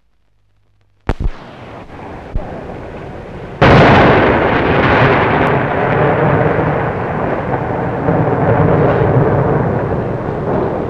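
Explosions: a couple of sharp bangs about a second in and another shortly after, then a sudden loud blast that runs on as a long rumble, slowly fading.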